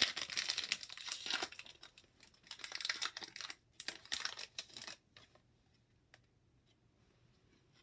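A 2017-18 Upper Deck Series 2 hockey card pack being torn open, its wrapper crinkling in a dense run of rustle that stops about five seconds in, followed by a few faint clicks.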